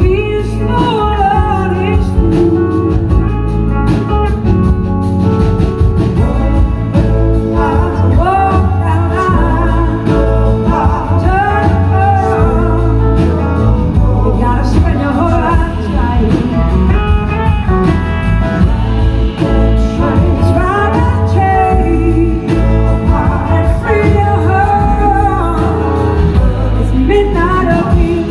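Live blues-rock band playing loud through the sound system: a woman singing lead over electric guitars and drums.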